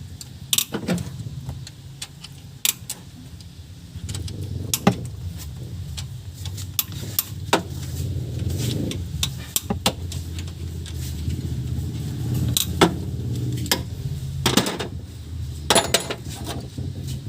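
Metal hand tools clinking and tapping against engine parts in sharp, irregular clicks. Under them runs a steady low hum that grows louder about four seconds in.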